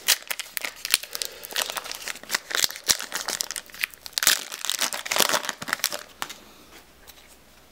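Foil trading-card booster pack wrapper crinkling and tearing as it is ripped open by hand, in dense crackly bursts; the rustling stops about six seconds in.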